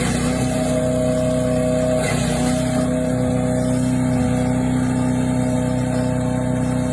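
Small gas engine of a 7 HP mini wood chipper shredder running at a steady speed.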